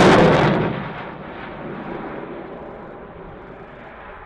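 Dassault Rafale fighter jet's twin Snecma M88 engines, a loud crackling roar as the jet passes overhead. Within the first second it drops sharply to a faint, muffled rumble.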